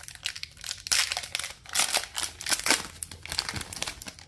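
Plastic foil wrapper of a hockey card pack crinkling and tearing as it is opened by hand, in a run of irregular crackles.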